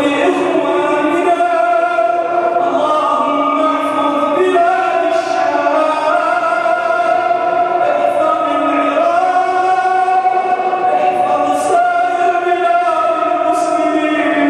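A man's voice chanting an Arabic supplication (dua) into a microphone, in long, held melodic phrases that rise and fall slowly.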